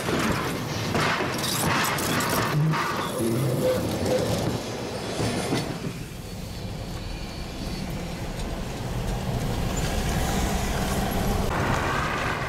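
A city tram running along its rails close beside a moving car, heard over the car's steady road noise, with a few knocks in the first few seconds.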